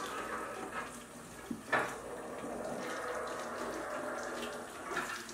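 Tap water running steadily into a sink. There is one short knock just under two seconds in.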